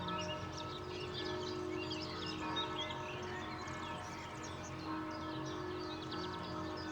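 Distant church bells ringing, their long tones hanging and overlapping as they are struck again every second or two. Small birds chirp throughout over a low rumble of city traffic.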